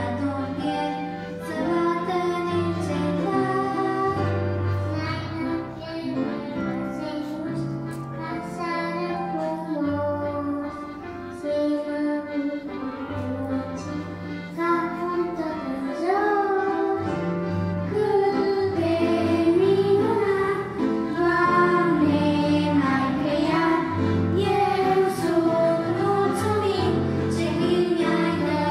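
Young children singing a Christian song into microphones over a steady instrumental accompaniment, the singing growing louder about halfway through.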